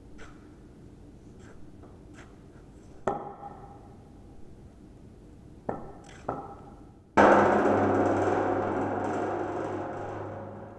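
Wooden axe handle striking an air-inflated aluminium sculpture. A sharp knock comes about three seconds in, two lighter knocks follow around six seconds, then a hard blow about seven seconds in leaves the metal ringing with a deep hum that slowly dies away.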